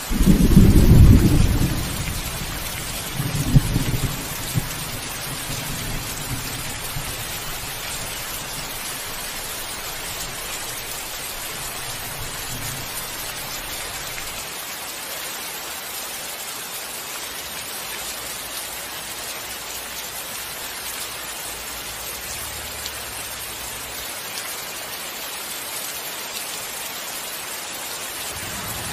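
Thunderstorm: steady rain throughout, a loud clap of thunder right at the start, and a second peal with a sharp crack about three seconds later that rumbles on and fades out midway, leaving only the rain.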